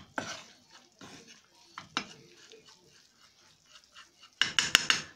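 Metal spoon stirring and scraping flour fried in oil around a frying pan, a few soft knocks and scrapes, then a louder burst of rasping noise with a sharp click near the end.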